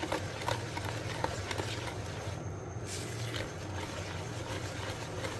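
Wire balloon whisk mixing flour into cake batter in a bowl: irregular light ticks and taps of the wires against the bowl over a low steady hum.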